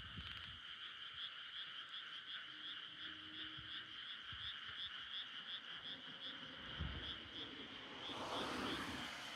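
A chorus of frogs calling steadily in a pulsing trill, about three pulses a second. Near the end a brief louder rush of noise swells and fades over it.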